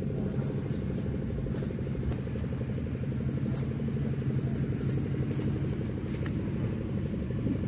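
An engine running steadily at an even speed, a low, unchanging hum, with a few faint clicks over it.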